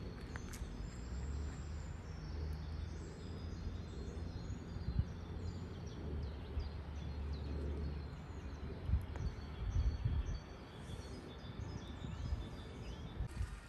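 Outdoor ambience: small birds chirping now and then over a low, steady rumble, with a few soft knocks about midway and near two thirds of the way through.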